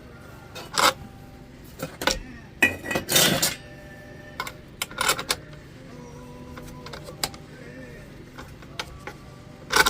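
Scattered sharp metal clinks and knocks, some ringing briefly, as a metal fuel fount is handled and clamped into a lantern vise, with a cluster of clatter about three seconds in.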